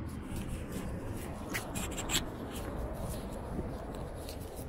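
Outdoor city street ambience: a steady low rumble with a run of short scratchy ticks and rustles over it, the loudest about two seconds in.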